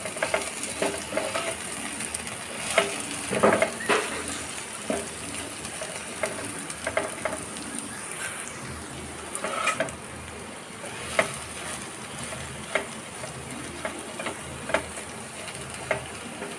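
Taro stolon pieces frying in oil in a non-stick kadai, a steady sizzle, as a slotted spatula stirs them and scrapes and taps against the pan every second or two.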